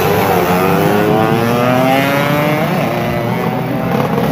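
Two-stroke 115 cc racing motorcycle engines revving, one rising steadily in pitch for about two seconds as it accelerates away.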